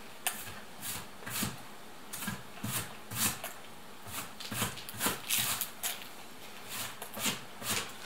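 A person chewing a piece of baked samsa with mouth open, a string of irregular wet lip smacks and chewing clicks.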